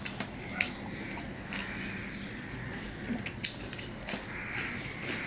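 A person eating by hand, biting into and chewing a fried piece of food. Soft wet chewing noises are broken by several sharp mouth clicks and smacks, spaced irregularly.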